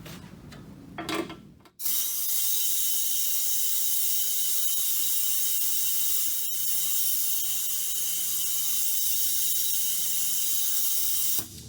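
Compressed-air-driven venturi vacuum pump hissing steadily, pulling a final vacuum on a pickup's R134a air-conditioning lines. It starts abruptly about two seconds in and cuts off suddenly near the end.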